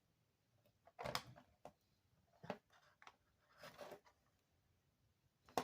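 Faint handling noise from small phone-repair work: four or five short clicks and scrapes spread about a second apart, with a sharper click near the end.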